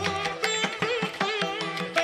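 Instrumental music with a steady beat of sharp strikes under a wavering melody.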